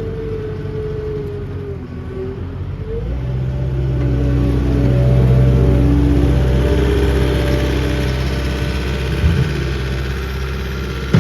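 Caterpillar 262D3 skid steer loader's diesel engine running, throttled up about three seconds in so that it rises in pitch and loudness, then holding high and easing a little. A short knock comes near the end.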